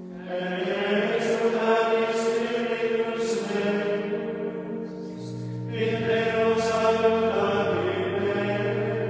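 Background choral music: a choir chanting a sacred piece in long held phrases, with a short break about five seconds in before the next phrase.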